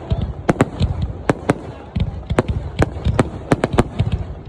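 Aerial fireworks bursting in quick, irregular bangs, about three a second, over a continuous low rumble.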